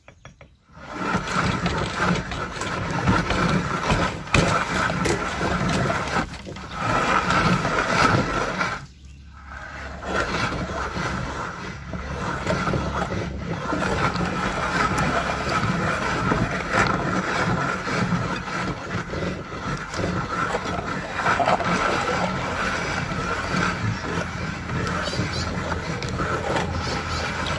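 Hand-cranked metal meat grinder turning steadily, its auger crushing soft persimmon fruit through the cutting plate with a wet, scraping churn. The cranking eases briefly about six and nine seconds in.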